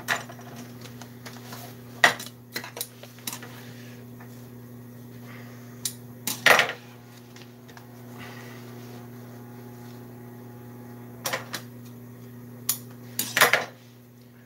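Steady hum of an industrial sewing machine's motor running while the machine is not stitching, with scattered metallic clinks and knocks as scissors and tools are handled on the machine table. The loudest knock comes about six and a half seconds in.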